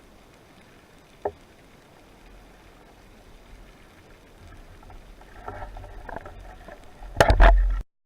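Underwater water noise recorded by a spearfisher's camera: a single short tick about a second in, then sloshing water movement that builds, and a loud cluster of sharp knocks and splashing near the end before the sound cuts off.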